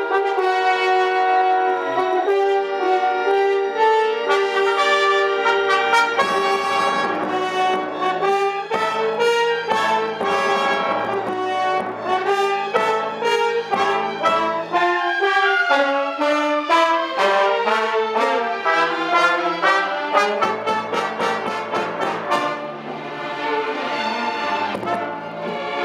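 Live orchestra playing, with the brass section prominent over the strings. Held chords give way to quick repeated notes about six seconds in.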